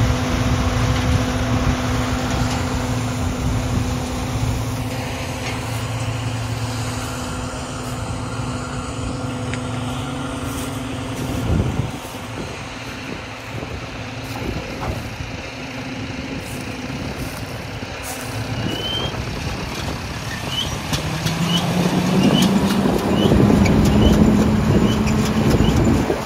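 Peanut harvester machinery and the engine driving it running steadily with a low hum. Near the end the engine note rises in pitch and gets louder, and short high chirps repeat about twice a second.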